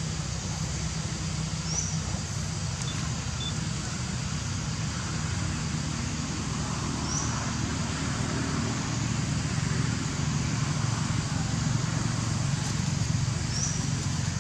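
Steady outdoor background noise: a low rumble with a hiss above it. A short, high rising chirp sounds three times, about five to six seconds apart.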